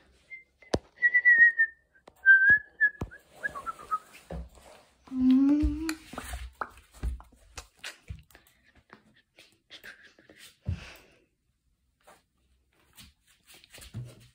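A person whistling a few short, high notes, the last one sliding down in pitch, then a brief rising voice sound about five seconds in. Scattered clicks and knocks from the phone being handled run throughout.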